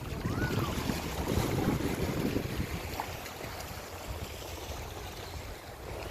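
Ocean surf washing in on the shore, with wind buffeting the microphone.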